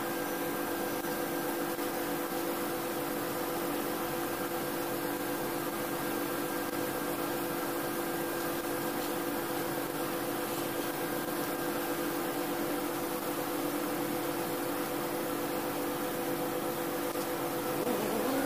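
Small inverter arc welder at work stick-welding a forklift fork: a steady hiss with a low, even hum throughout.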